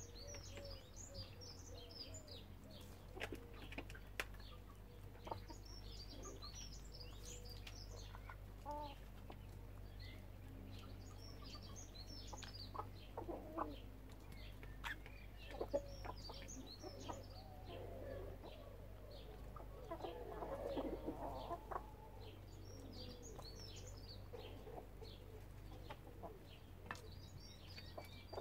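Backyard chickens clucking softly as they forage, with a denser run of clucks about two-thirds of the way through. Small birds chirp in short high bursts throughout, over a steady low rumble.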